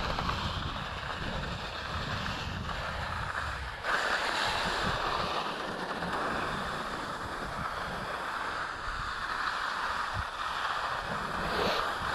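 Skis hissing and scraping over firm snow that has not yet softened, on a downhill ski-touring run, with wind rumbling on the microphone. The hiss surges louder about four seconds in and again near the end.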